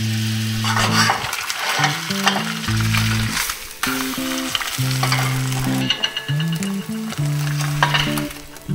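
An egg sizzling as it fries in butter in a nonstick pan, a steady crackling hiss, over background music with sustained low notes.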